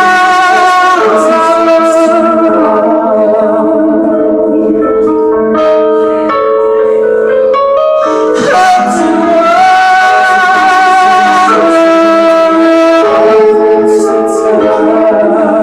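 Live band music: a man singing long held notes with vibrato into a microphone over electric keyboard chords.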